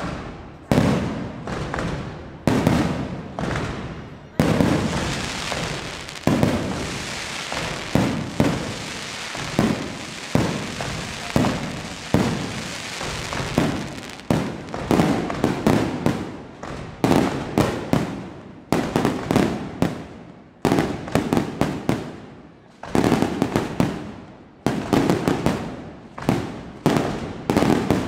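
Aerial fireworks display: shell after shell bursting in quick succession, each bang fading away. For about ten seconds after the opening bursts, the explosions run together into a dense unbroken rumble, then break up again into separate bangs that come faster near the end.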